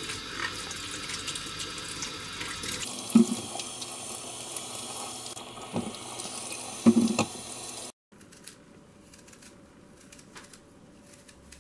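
Kitchen tap running steadily over apples being washed in a stainless steel sink, with a few sharp knocks along the way. The water cuts off suddenly about eight seconds in, leaving faint clicks of a small knife peeling an apple.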